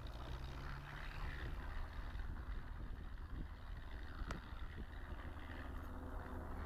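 Piper PA-28 light aircraft's piston engine and propeller running steadily, with a noisy airflow hiss over the drone. A single sharp click about four seconds in.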